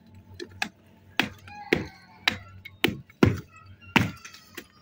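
Two hand hammers striking fired clay bricks, breaking them into brick ballast (rori): sharp, uneven knocks about two a second, some with a short ring.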